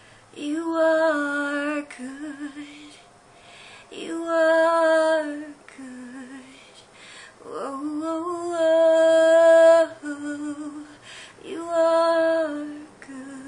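A woman singing unaccompanied in several phrases of held notes, the longest about two seconds in the middle, sliding up into it.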